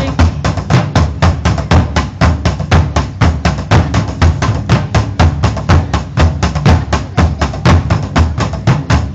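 Three taiko drums beaten together with wooden sticks: a fast, steady rhythm of loud, deep drum hits.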